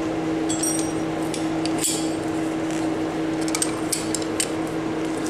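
Hand tools clinking against metal parts: a few short ringing metal chinks about half a second in and near two seconds, then scattered lighter clicks, over a steady low hum.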